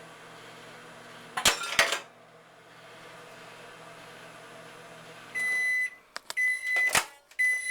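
Microwave oven running with a steady hum; about a second and a half in, a loud crackling pop as the Rubik's cube heating inside bursts, knocking a center cap off. The hum stops about five seconds in and the microwave beeps three times at the end of its cycle, with a sharp click between the second and third beeps.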